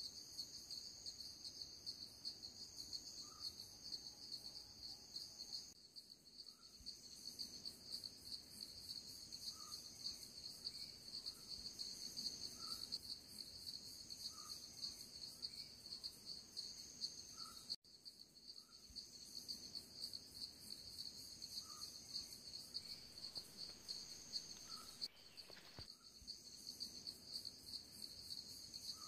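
A steady, high-pitched chorus of insects chirring with a fine rapid pulse, with a faint short note repeating every couple of seconds. The chorus breaks off for a moment twice and resumes.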